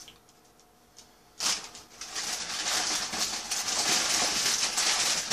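Loud crinkling and rustling of paper and plastic food wrapping, starting suddenly about a second and a half in and continuing without a break.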